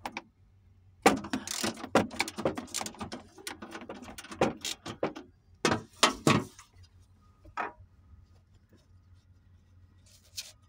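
Metal socket wrench on a long extension working panel bolts loose: a run of rapid, irregular metallic clicks and clatter lasting about four seconds, followed by a few separate knocks.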